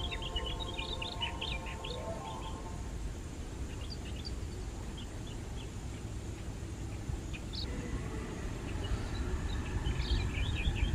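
Small birds chirping in quick scattered calls, thickest in the first couple of seconds and again near the end, over a steady low rumble.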